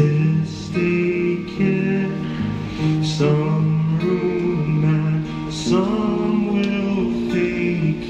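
A street singer singing a slow melody to guitar accompaniment.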